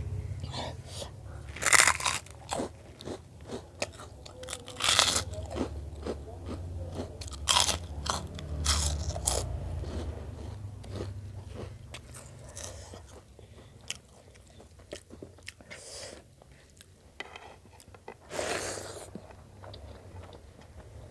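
Close-miked eating: a person biting into crunchy food and chewing, with a run of small clicks and crackles. Louder crunches come about two seconds in, around five seconds, and again near the end.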